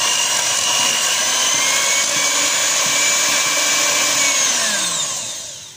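Electric hand mixer running with a steady whine, its beaters whisking eggs and sugar in a stainless steel bowl. Near the end the motor winds down, its pitch falling, and stops.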